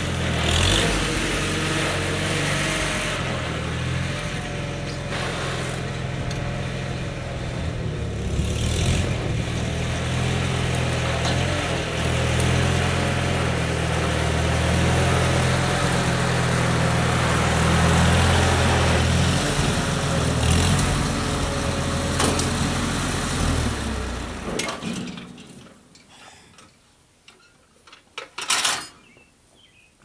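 Old farm tractor's engine running steadily as the tractor is driven and parked, then shut off near the end. A short loud knock follows a few seconds later.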